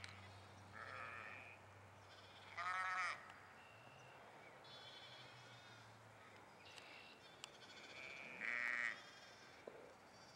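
Sheep bleating, several separate calls, the loudest about two and a half seconds in and again near nine seconds.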